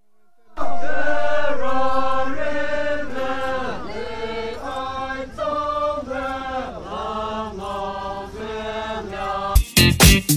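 Naga folk dancers chanting a song in unison: a short phrase repeats a little more than once a second, the voices holding steady notes. Just before the end the chant cuts off and upbeat funk-style intro music with sharp beats comes in.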